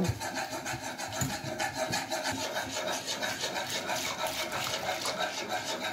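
Whisk beating orange and lemon juice into cornstarch in a saucepan: a rapid, steady scraping and swishing against the pan, with juice pouring in from a jug.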